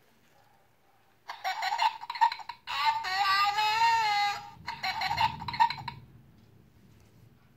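Preferred Plush Happy Halloween Squeezers mummy plush's sound chip, set off by squeezing its press button, playing a recorded voice clip. A short choppy burst comes about a second in, then a long wavering held note, then another short burst.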